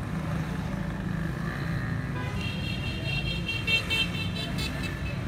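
Steady low rumble, with a high, rapidly pulsing horn-like tone coming in about two seconds in and lasting a couple of seconds.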